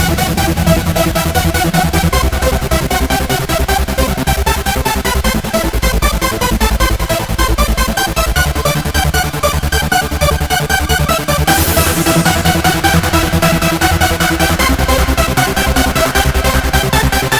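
Electronic dance music in a DJ mix, with a fast, steady beat and heavy bass. About eleven and a half seconds in, a bright wash of high sound comes in over the beat.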